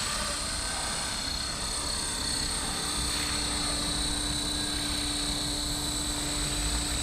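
Blade Fusion 360 electric RC helicopter hovering: the steady whine of its motor and rotor, with a lower tone growing stronger about three seconds in.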